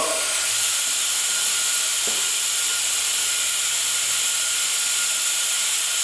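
Air-powered vacuum brake bleeder running with a steady hiss as compressed air drives it, drawing brake fluid from the rear brake to bleed the line.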